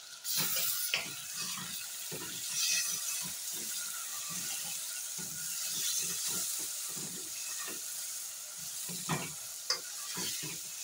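Browned goat meat sizzling in a hot stainless steel pot, the sizzle breaking out suddenly just after the start as gravy browning goes in. A wooden spoon stirs and scrapes through the meat with many short knocks against the pot.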